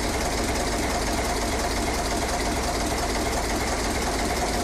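Steady mechanical running noise like a motor or engine, with a fine rapid rattle and a low drone, unchanging in level.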